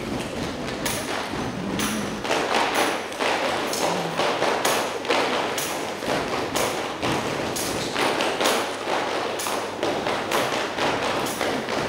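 Rhythmic hand percussion: a syncopated pattern of sharp claps and thumps, a hit roughly every half second, with little melody behind it.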